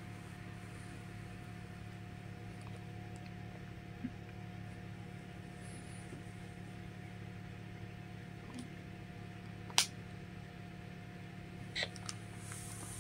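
Quiet room tone: a steady low hum, with one sharp click about ten seconds in and a couple of fainter clicks near the end.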